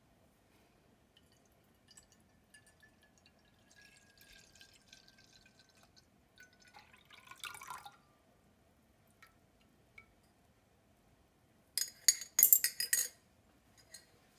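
Cold espresso poured from a ceramic jug into a ceramic bowl, splashing most clearly about two-thirds of the way in. Near the end comes a short burst of sharp ceramic clinks, the loudest sound.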